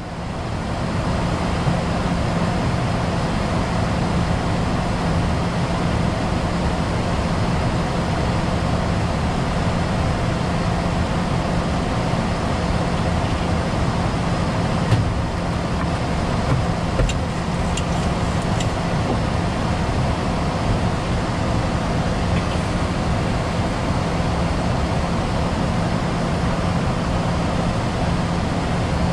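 Boeing 737-800 flight-deck noise in flight: a steady rush of air and engine noise with a constant low hum. A few faint clicks come about halfway through.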